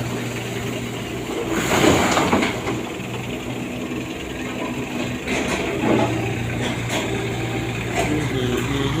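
Kubota U17 mini excavator's three-cylinder diesel engine running steadily, with louder surges about two seconds in and again around five to six seconds in, and a few sharp clicks near the end.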